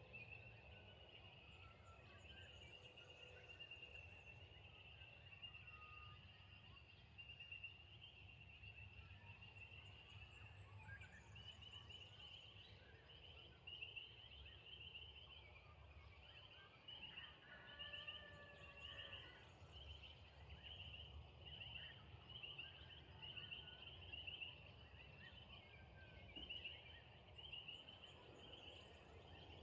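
Faint outdoor evening ambience: a steady high-pitched chirring chorus that breaks into short repeated pulses about halfway through, with a few faint calls and a low rumble underneath.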